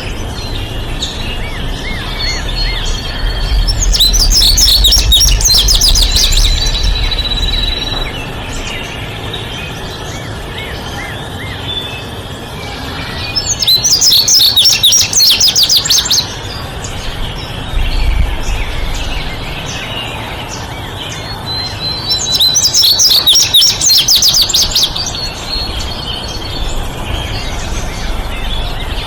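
Songbirds singing: three loud bursts of rapid, high trilled notes roughly nine seconds apart, over a steady chorus of fainter chirps.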